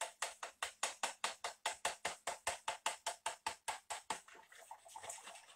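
Wet muffin ingredients (softened butter, cream cheese, eggs, sour cream and lemon juice) being stirred by hand in a plastic mixing bowl: a quick, even beat of strokes knocking against the bowl, about five a second. The beat stops about four seconds in and gives way to softer stirring.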